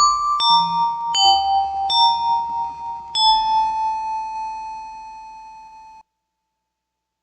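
Yamaha PSR-36 keyboard playing a few bell-like notes through a Vivlex Time Maker delay pedal. The last note is held and fades, then the sound cuts off suddenly about six seconds in.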